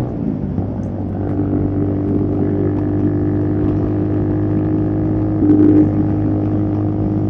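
Motorstar Z150 motorcycle engine running steadily under the rider at an easy, slow pace. It swells briefly louder a little past halfway.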